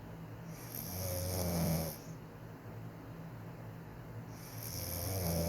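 A woman snoring quietly in her sleep: two snores about four seconds apart, each swelling in a low rumble and then stopping sharply.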